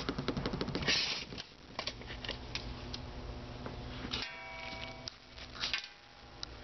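Bubble wrap crinkling and crackling as it is handled right next to the microphone, with scattered clicks and rustles. A short pitched squeak comes a little past four seconds in.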